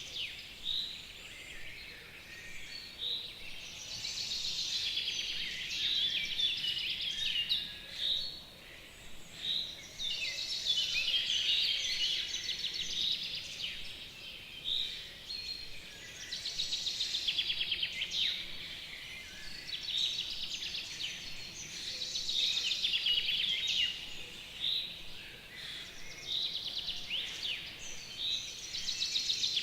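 Spring songbirds singing: high song phrases of rapid trills and chirps, coming in bouts every few seconds.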